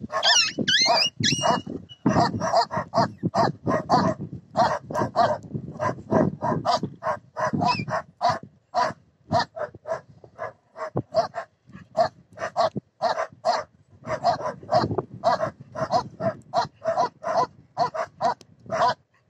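Dogs barking and yapping rapidly and without a break, two or three short, fairly high barks a second. There are high squeals in the first second or so.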